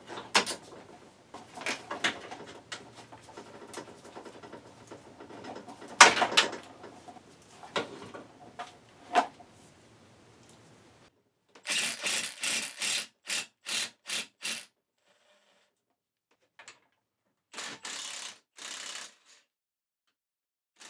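Clicks and knocks of seat parts being handled, then, from about halfway, a ratchet wrench clicking in a run of short strokes, about two a second, with two more strokes near the end.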